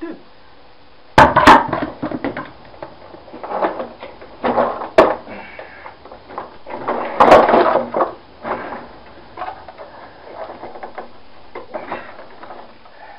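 Irregular knocks and clatter of plastic vacuum-cleaner parts being handled and pulled apart, with sharp knocks about a second in and a louder burst of clattering around the middle.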